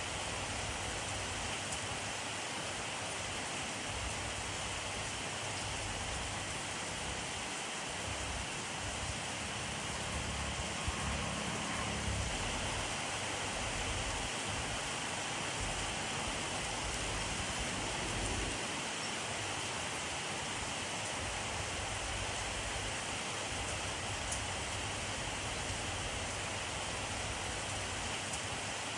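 Steady rainfall, an even hiss of rain on surfaces, with a faint low rumble swelling briefly about ten seconds in.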